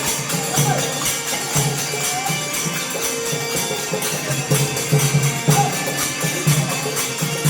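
Music with a steady beat and jingling percussion throughout.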